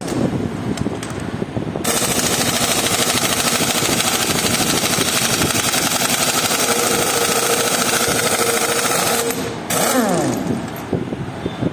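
A power tool running loud with a fast hammering rattle for about eight seconds, then stopping and winding down in falling pitch.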